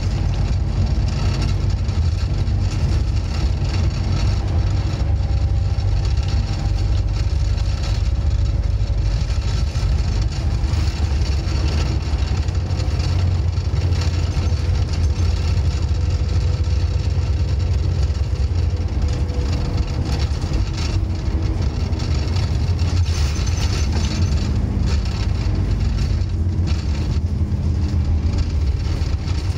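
Scania N230UD OmniCity bus's 9-litre five-cylinder diesel heard from inside the passenger saloon while under way: a steady low engine drone with road and tyre noise over it. Faint whines rise and fall with changes in speed, with a mild growl.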